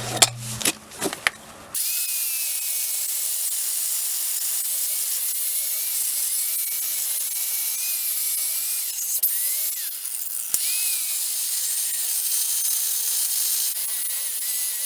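Angle grinder cutting into a steel brake disc: a steady grinding hiss with a faint wavering whine that starts about two seconds in, after a few clicks and knocks.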